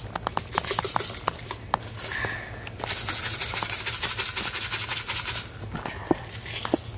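Rustling and rubbing of clothing and hands against the camera as it is handled: scattered clicks and knocks at first, then a dense, fast scratchy rustle from about three seconds in that lasts a couple of seconds.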